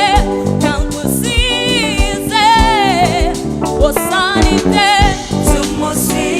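Gospel song: a vocalist singing with vibrato over a band with a steady drum beat.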